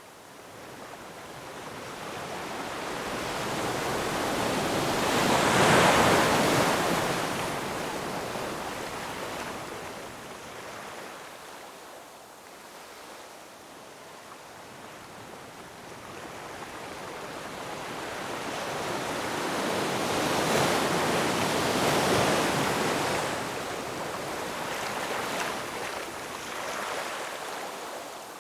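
Ocean waves breaking and washing over rocks: two swells of surf, the first cresting about six seconds in and the second, longer one around twenty to twenty-three seconds, each ebbing away after.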